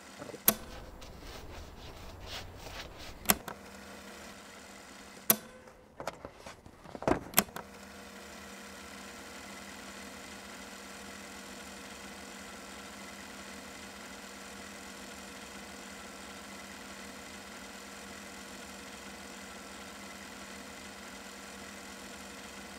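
A handful of sharp knocks and clatter in the first eight seconds, then a steady, even hum with several fixed tones.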